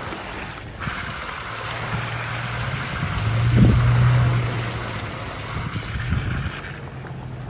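Toyota Tacoma pickup driving slowly over a rough dirt and grass trail. Its engine hum rises about three seconds in and eases off again, over a steady rushing noise.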